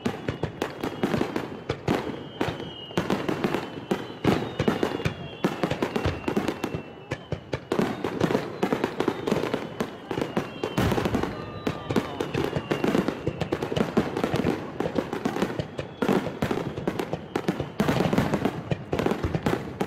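Fireworks display: shells bursting in a rapid, nearly unbroken barrage of bangs, with several thin whistles falling in pitch through it.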